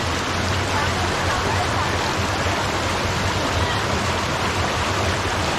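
Running spring water flowing steadily, a continuous rushing.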